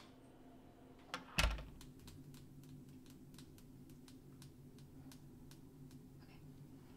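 A door latch clicks and a door shuts with a heavy thud about a second and a half in. Faint, even ticking, about three ticks a second, runs on over a low steady hum.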